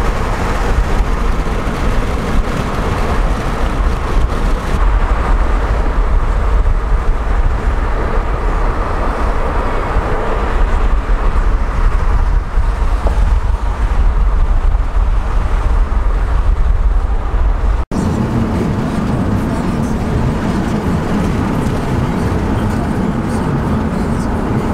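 Steady road and wind rumble of a car driving at speed, heard from inside the car. About 18 seconds in there is a sudden break, and the rumble carries on with a slightly different tone.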